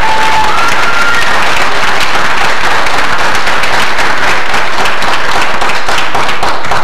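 Audience applauding, a dense patter of many hands clapping, with a couple of short calls over it in the first second.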